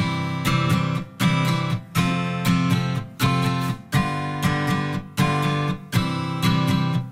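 Background music: an acoustic guitar strumming chords in a steady rhythm, about one strum a second, starting suddenly.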